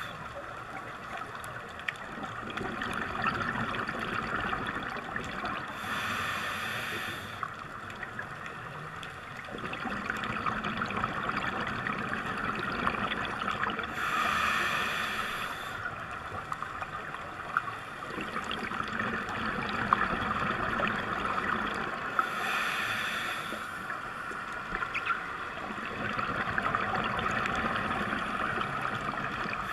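Scuba diver breathing through a regulator underwater: three hissing inhalations about eight seconds apart, with bubbling, crackling exhalations between them.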